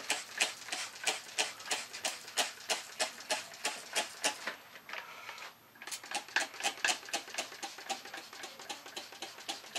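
Hand trigger spray bottle squeezed over and over, each pump a short click and spritz of mist, about three a second. It pauses for about a second midway, then goes on a little faster.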